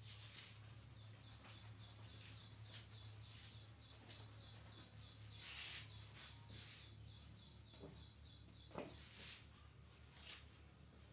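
A high chirping call repeated quickly, about three or four times a second, for some eight seconds, over a steady low hum and a few soft swishes.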